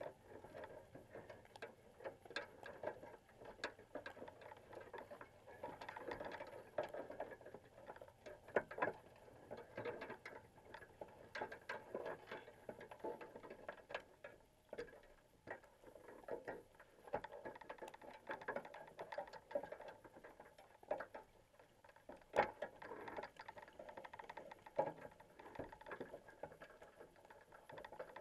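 Quiet irregular clicks and taps, a few a second, over a low wavering hiss, recorded underwater through a GoPro's waterproof housing inside a crab pot as crabs move over the wire mesh and bait box.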